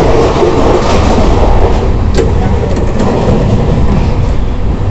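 Passenger train running: a loud steady rumble with one sharp click about two seconds in.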